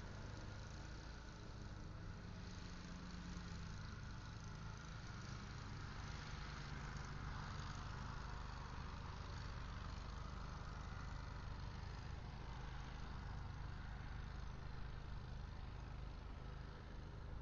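Steady low engine rumble of distant vehicles, with a hiss that swells and fades about midway through.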